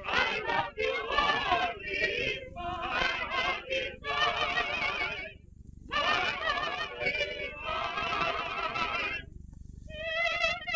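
Voices singing with heavy vibrato, in held phrases broken by short pauses about five seconds in and near the end, on an early sound-film recording.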